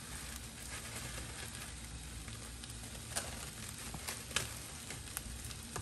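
Pot of green beans simmering on the stove, a steady sizzling hiss with a few faint ticks.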